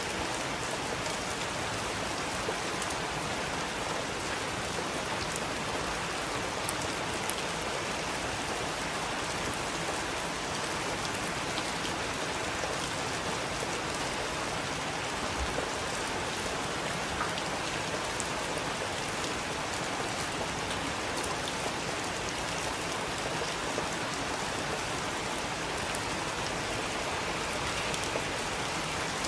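Heavy rain falling steadily, with the patter of separate drops striking a surface.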